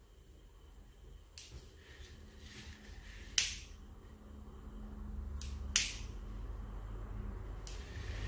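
Sharp clicks and snaps from tools and wire being handled while a small buzzer circuit is soldered, about five in all, the loudest about three and a half seconds in. Under them is a low hum that grows louder.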